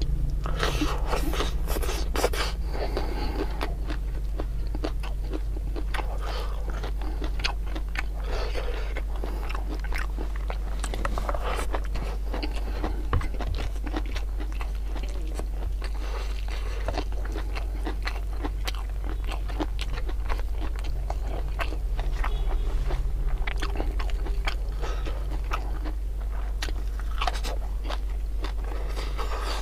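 Close-up chewing and crunching on raw leafy vegetables with rice, with wet mouth sounds and small clicks, in a few louder crunchy stretches. A steady low hum runs underneath.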